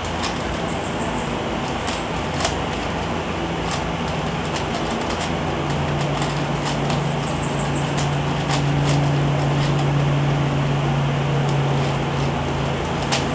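Plastic layers of an Eastsheen 5x5 puzzle cube being turned in a speedsolve, giving scattered clicks, over a steady hiss and low hum. The hum grows louder about halfway through.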